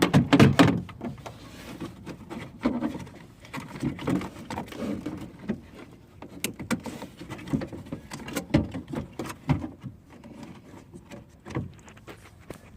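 Irregular clicks, knocks and rattles of plastic and metal parts being handled inside a car door shell as the old door lock actuator is worked loose by hand, loudest in a burst right at the start.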